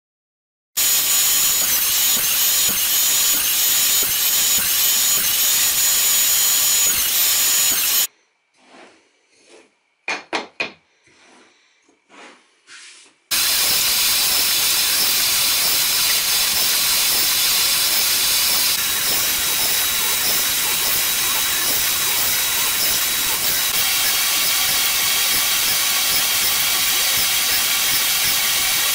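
Workshop dust extractor running with a loud, steady hiss through its hose at a bench drill press while holes are drilled in small wooden blocks. It starts about a second in and cuts out about eight seconds in. A few light knocks of wood being handled follow, then the extractor and drill start again about five seconds later.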